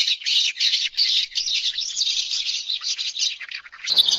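Bird chirping in quick, high-pitched notes, about three clusters a second. Near the end the sound changes to a different recording, with a background hiss under more chirps.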